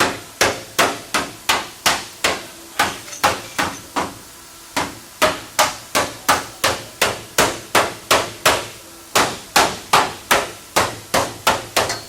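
A hammer striking repeatedly, about three sharp blows a second, in three runs with short pauses between them.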